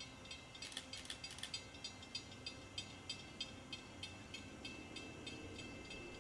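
A faint bell ringing steadily, about three strikes a second, with a cluster of brighter strikes about a second in, over a low rumble.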